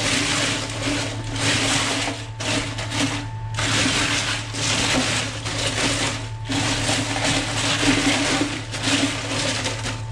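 Ice cubes in salted water in a stainless steel sink rattling, crunching and sloshing as steamed mud crabs are pushed down into the ice slurry by hand, in several bouts with brief pauses. A steady low hum runs underneath.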